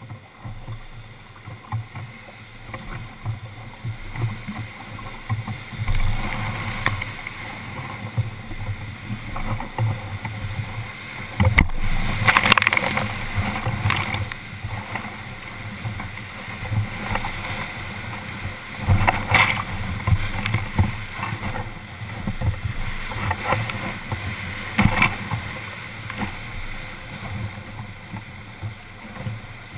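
Whitewater rapid rushing around a wooden rowboat. It grows louder over the first several seconds as the boat enters the rapid, and waves break over the boat several times, loudest about twelve seconds in.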